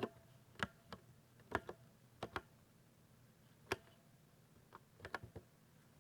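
Keys on a 60% mechanical keyboard being pressed in slow, uneven keystrokes, giving thocky clicks: single presses and close pairs, then a quick run of four near the end.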